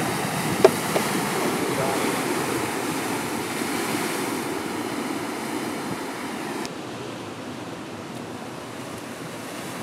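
Ocean surf breaking and washing over a rock ledge: a steady rushing, with one sharp click about half a second in. About two-thirds of the way through, the rushing turns abruptly quieter and duller.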